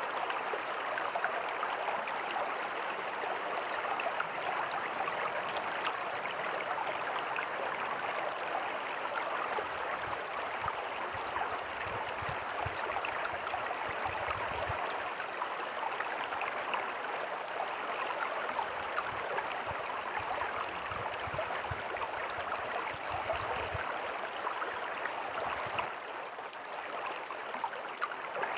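Small creek with a tiny waterfall, water running and splashing over rocks in a steady rush.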